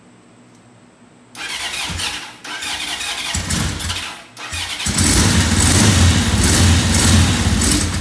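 1981 Honda CB750 DOHC inline-four being cranked on its starter after a top-end rebuild, in three bursts beginning about a second and a half in. The third burst is the longest and loudest, with a strong low engine note.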